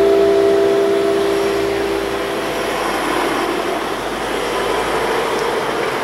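The last ringing of church bells dies away, its steady tones fading out about two and a half seconds in. A steady rushing noise like passing traffic is left behind.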